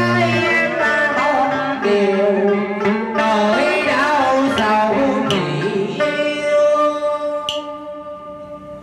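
Vietnamese cải lương singing over a plucked-string accompaniment in the đờn ca tài tử style. The melody moves up and down, then settles about six seconds in on one long held note that slowly fades.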